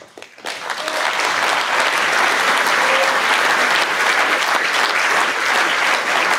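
Large audience applauding. The clapping swells within the first second and then holds steady.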